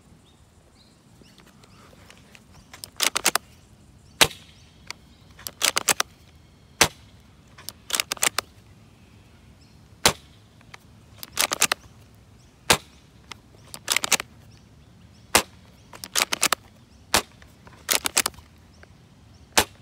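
A toy gun being test-fired: a string of sharp shots, some single and some in quick bursts of two to four, coming every second or two from about three seconds in.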